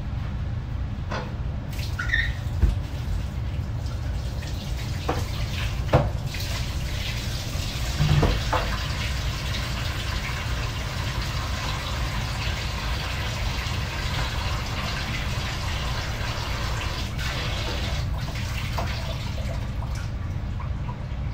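A stockpot of water at a boil on the stove: a steady low rumble with a watery hiss. A few short knocks and clicks come in the first few seconds, one of them louder about six seconds in.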